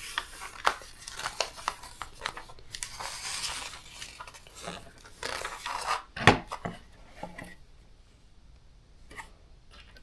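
LEGO plastic pieces clicking and rattling as they are handled and pressed together, with light rustling. The sharpest click comes about six seconds in, and it is quieter after that.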